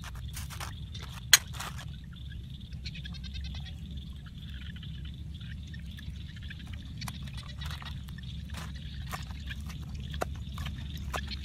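Cleaver chopping red chilies on a wooden chopping board: scattered knocks of the blade on the wood, with one sharp knock about a second in and more frequent chops in the last few seconds.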